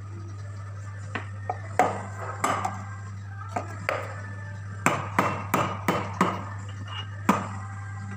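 A series of about a dozen sharp knocks and clatters of coffee-making gear, such as cups, a pitcher or a portafilter, being handled and set down on a counter. They come irregularly, bunched more closely in the middle, over a steady low hum.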